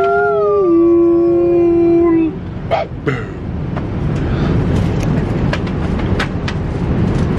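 Drawn-out, howl-like vocal calls from people, rising in pitch and then held, end about two seconds in. The steady noise of the airliner cabin follows, with scattered light knocks.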